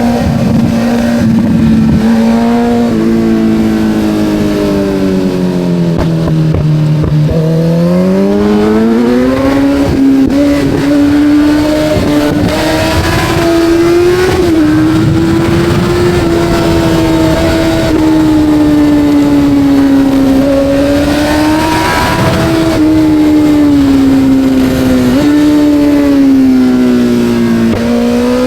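Kawasaki Z900's inline-four engine under way, its note sagging about six seconds in, then climbing back and holding at a higher pitch with a few brief dips.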